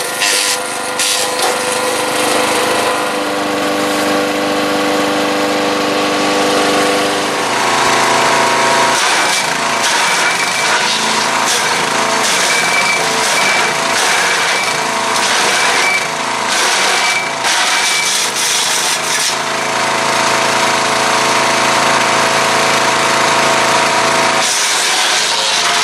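Gasoline-engined EFCUT C30 mini wood chipper shredder running loud and steady, with branches being fed in and chipped. From about nine seconds in, for about ten seconds, a dense crackling and cracking from the chipping covers the engine note, which then runs on alone.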